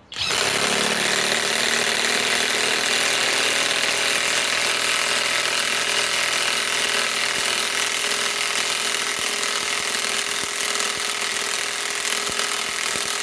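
SKIL PWR CORE 20 mid-torque cordless impact wrench hammering steadily in rapid impacts as it drives a 10-inch lag bolt. The bolt won't go all the way in with this wrench.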